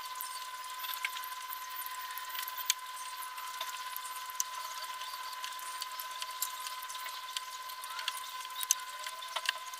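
Gram-flour batter dumplings (bhallas) frying in hot oil: quiet, scattered crackles and pops of sizzling over a faint steady high hum.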